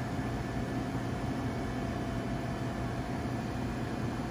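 Steady background hum of kitchen machinery: an even low drone with a faint thin whine running through it, with no distinct events.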